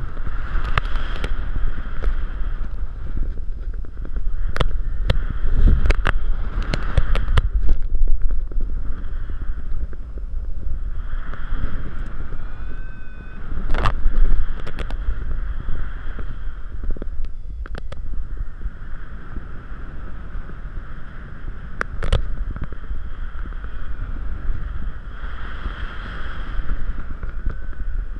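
Wind rushing over a GoPro Hero 3's microphone in paragliding flight: a steady low buffeting rumble with a higher hiss that swells and fades several times, and a few scattered sharp knocks.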